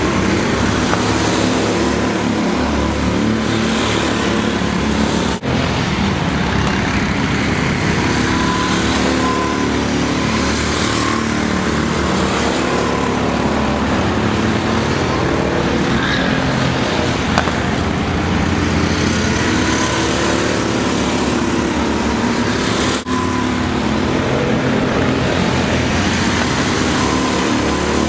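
Go-kart engine running steadily at speed under throttle, with wind and tyre noise, broken by two split-second dropouts.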